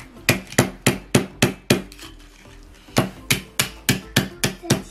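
Small hammer striking the parts of a dismantled Philips mobile phone: two quick runs of sharp knocks at about four a second, with a pause of about a second between them.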